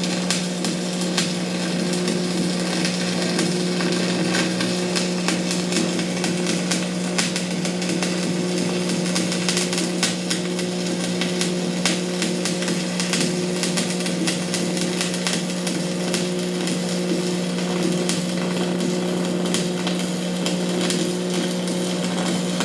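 Stick arc welding: the arc crackles and sizzles steadily over the steady hum of the welding machine, and the arc cuts off at the very end.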